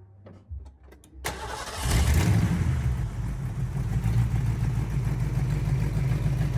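A few light clicks, then a Fox-body Mustang's 5.0 V8 cranks briefly and fires about a second in, settling into a steady idle.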